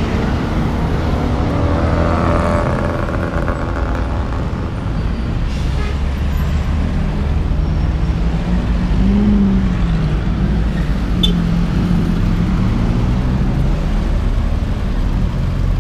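Busy city road traffic passing close by, with car, bus and motorbike engines running in a steady low rumble. About nine seconds in, one engine's pitch rises and falls.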